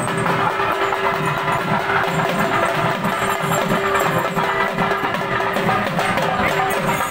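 Music: fast, dense percussion over a steady held drone note.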